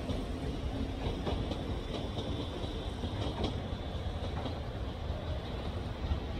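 Train running along the track: a steady rumble with a few scattered clicks from the wheels.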